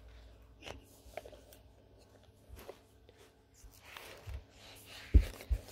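A phone being handled right at its microphone: light rubbing and scattered clicks, with two soft thumps near the end.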